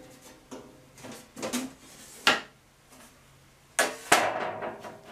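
Steel dies and aluminum sheet being handled at a bead roller while the dies are turned around on their shafts: a string of sharp metal knocks and clanks, the loudest about two seconds in and about four seconds in, the last ringing briefly.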